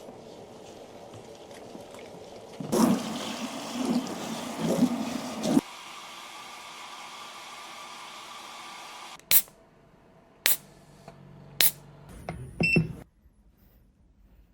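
Water running and splashing during a hair rinse at a salon wash basin, louder for a few seconds, then shut off about nine seconds in. Four sharp clicks about a second apart follow, with a short electronic beep near the end.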